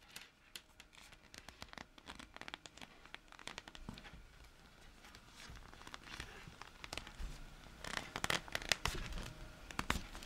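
Circular knitting needles clicking and knitted stitches rubbing as they are slid along the cable and onto the needle. The clicks come irregularly throughout and bunch together about eight seconds in.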